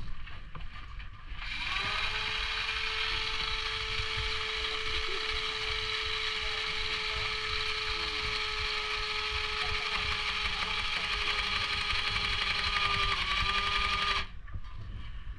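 Tokyo Marui electric BB loader's motor running with a steady, even whine, starting about a second and a half in and cutting off suddenly near the end.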